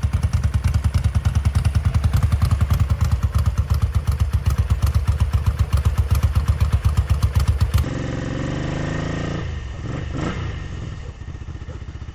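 1978 Ducati 900's bevel-drive 90-degree V-twin idling with a lumpy, pulsing beat, about seven pulses a second. After a cut about eight seconds in, the engine is heard running with its pitch rising and falling.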